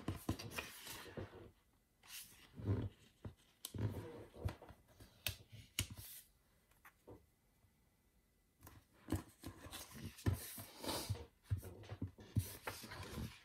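Loose planner pages being slid, lifted and set down on a table by hand: paper rustling and swishing with soft knocks and a few sharp clicks, in several bursts with short pauses between.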